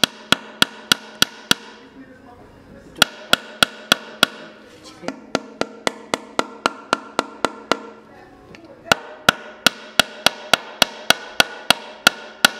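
Small steel hammer tapping the leg tenons through a Windsor perch stool's wooden seat to drive the legs home: light, quick taps, about three a second, each with a clear ring, in three runs with short pauses about two and eight seconds in. The taps are kept short so the seat doesn't split, and the ring is listened to as the joint goes from loose to tight.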